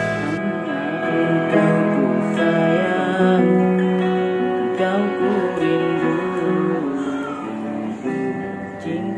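Stratocaster-style electric guitar playing a melodic lead line of his own song, with sustained, bent and wavering notes.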